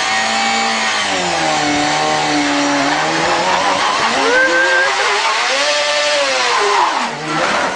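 Motorcycle engine revving hard through a burnout, the rear tyre spinning against the pavement. The engine pitch sinks over the first couple of seconds, climbs to a peak about six seconds in, and drops again near the end.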